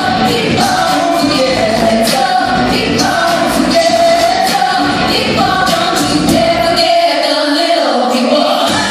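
A stage cast singing together over amplified pop music with a steady beat, heard from the audience in a hall. The bass drops out about seven seconds in and comes back just before the end.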